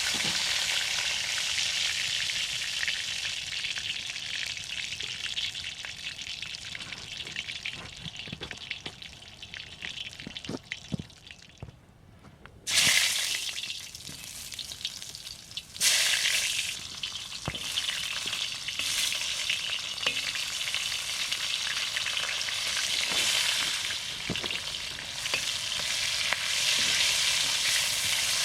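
Food frying in a pan over a campfire: a steady sizzle with scattered light clicks. The sizzle dies down just before halfway, then flares up loudly twice, a few seconds apart, and carries on.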